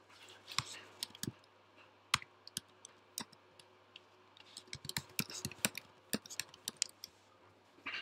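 Computer keyboard keys clicking in quick, irregular runs: a few separate clicks early, then a dense burst of typing in the second half.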